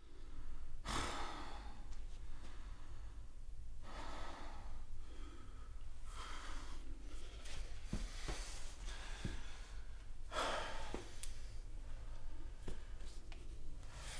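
A man breathing heavily and raggedly, long loud breaths about every two seconds, over a steady low hum of room tone.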